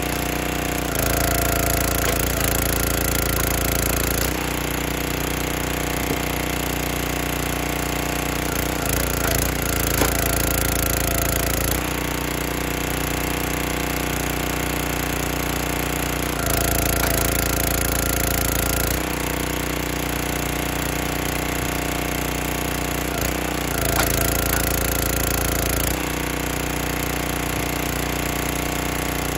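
Small gasoline engine of a 32-ton Performance Pro log splitter running steadily. It grows louder for a few seconds about four times as the hydraulic ram drives oak rounds through the wedge. A couple of sharp cracks come from wood splitting.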